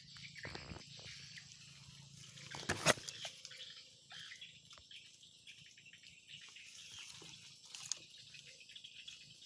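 Underwater ambience: a steady faint crackle of small clicks over a low rumble, with one sharp knock about three seconds in and a smaller one near eight seconds.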